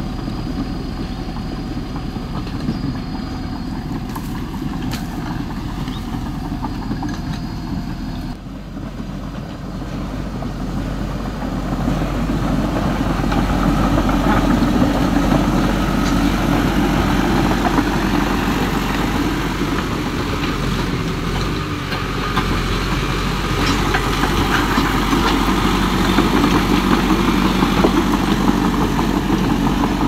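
Steady engine running sound for a toy RC crawler bulldozer. It dips briefly about eight seconds in and grows louder from about twelve seconds in.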